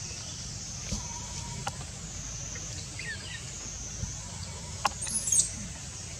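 Outdoor forest ambience: a steady high-pitched drone over a low rumble, with a few sharp clicks and short sweeping chirps, the loudest chirps about five seconds in.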